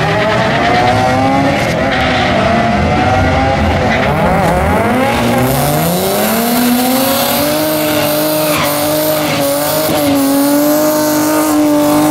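Car engine revving up and down, then climbing at about six seconds in and held at steady high revs as the rear tyres spin in a smoky burnout, with the hiss and squeal of the spinning tyres.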